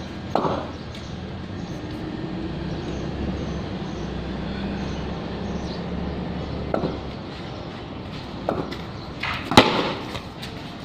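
A handful of sharp knocks from a ball bouncing on stone paving and being struck in a street cricket game, the loudest about a second before the end, over a steady low hum that fades out about two-thirds of the way in.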